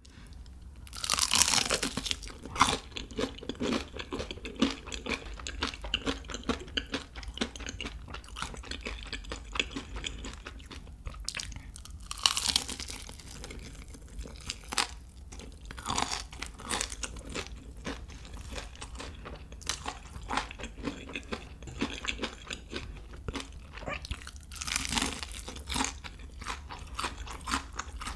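Close-miked crunching bites and chewing of crispy fried chicken coated in nacho chip crumble. Loud bites come near the start, about twelve seconds in, and again about twenty-five seconds in, with steady crackly chewing between them.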